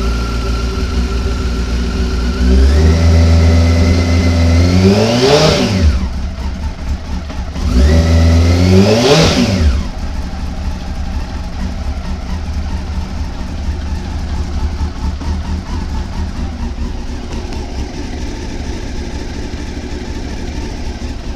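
Honda CBR954RR's inline-four engine idling, revved up twice, its pitch climbing and dropping back each time, then idling steadily for the second half. The owner presents the engine for a knock.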